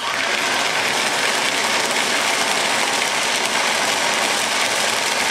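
Ninja countertop blender switched on and running at full power, crushing ice with water and leafy greens: a loud, even grinding noise.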